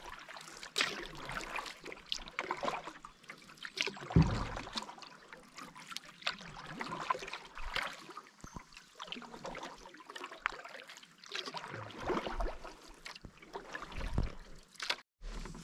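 Light water splashing, dripping and trickling around a canoe as it moves on a calm lake, with a few low thuds, the loudest about four seconds in.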